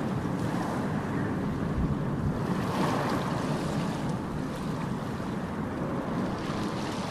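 Steady wash of sea waves with wind noise on the microphone.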